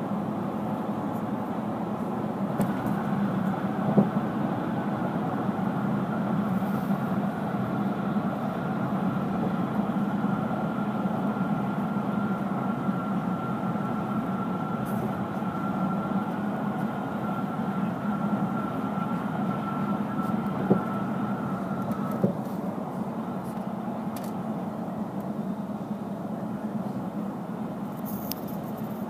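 Steady road and engine noise heard from inside a moving car, with a faint steady whine through most of it and a few light knocks.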